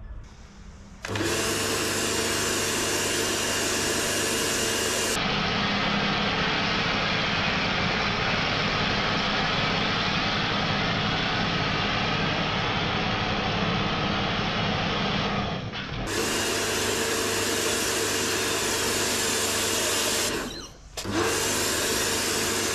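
Karcher K2 electric pressure washer running, a steady motor hum and whine under the hiss of the spray as a snow foam cannon lays foam over a car. It starts about a second in, cuts out briefly near the end, then starts again.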